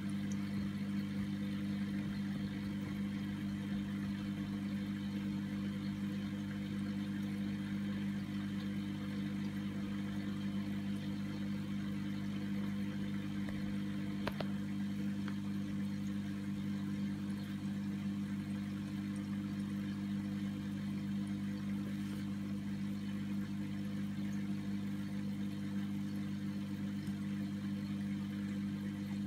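Steady electric hum of aquarium pump equipment running, with one faint tick about halfway through.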